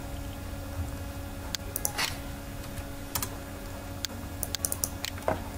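Scattered computer mouse clicks while opening folders, several of them in quick pairs as double-clicks, over a steady low electrical hum.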